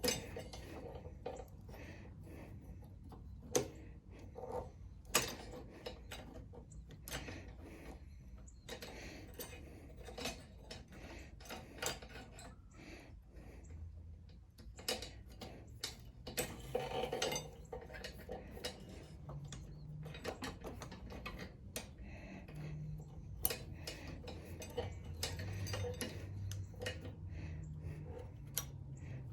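Scattered clicks and light metallic clinks of small tools and carburetor parts being handled while a lawn mower carburetor is taken apart, with a short burst of clattering about halfway through. A faint low hum comes in during the later part.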